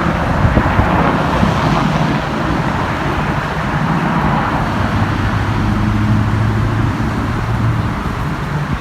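Steady car and road noise, a continuous rushing with a low engine hum whose pitch shifts a little partway through.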